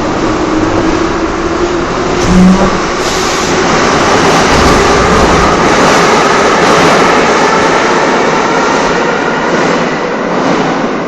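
Moscow Metro train running, with a loud steady rumble of wheels on rails and a faint whine that rises slightly in pitch.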